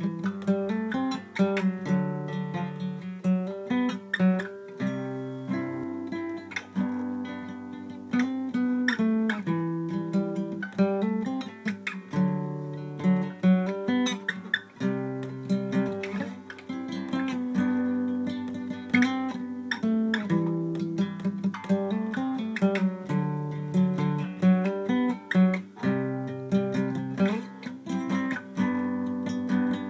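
Solo acoustic guitar played by hand: a continuous flow of plucked notes ringing over bass notes that change every second or so.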